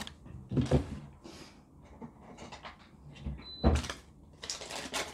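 Kitchen handling sounds: a few knocks and clatters as things are picked up and set down on the worktop beside an induction hob, with a short high beep about three and a half seconds in.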